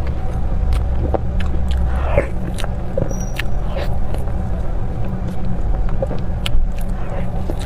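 Close-miked eating sounds: small wet smacks, clicks and chewing of soft cream-filled desserts, scattered irregularly over a steady low hum.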